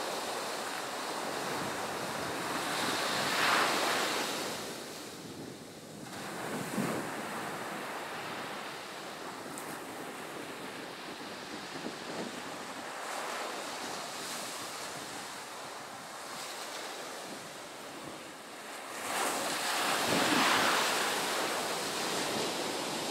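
Ocean surf breaking and washing up the beach: an even rushing hiss that swells loudest twice, about three seconds in and again near the end.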